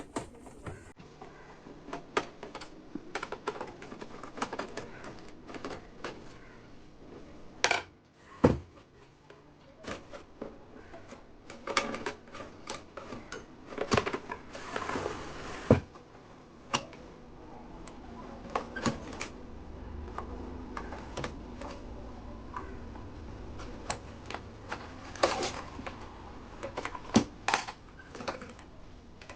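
Irregular clicks, taps and knocks of hands and tools handling the parts of an opened AV receiver on a workbench, with a few louder knocks scattered through.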